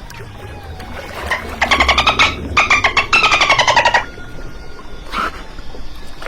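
Dolphin burst-pulse calls: three rapid, buzzy pulsed squawks in quick succession, the last one sliding slightly down in pitch, over a steady low rumble.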